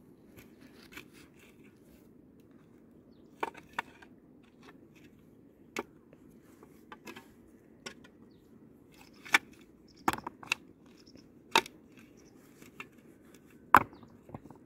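Metal shovel blade digging into stony soil, scraping and crunching with sharp clinks as it strikes the stones, about eight strikes at irregular intervals.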